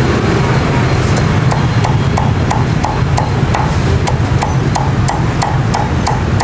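Meat cleaver chopping through crispy-skinned roast pork onto a thick wooden stump cutting board, in quick even strokes of about three a second, over a steady low background rumble.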